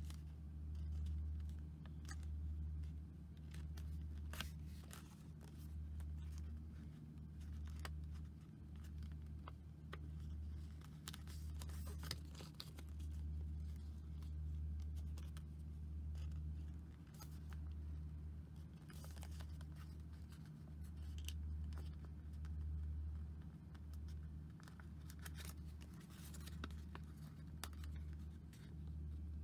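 Origami paper being folded and creased by hand: scattered light crinkles, rustles and soft clicks of the paper. Underneath is a low hum that swells and fades every second or two.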